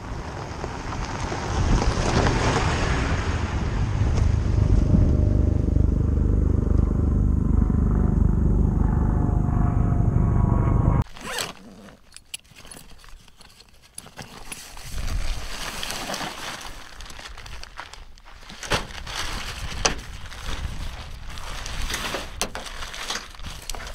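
Toyota Tundra pickup driving over gravel, its engine and crunching tyres growing louder over the first few seconds, then cutting off abruptly about eleven seconds in. After that comes the unzipping of a duffel bag and the rustling of a tent bag being handled, with scattered clicks and scrapes.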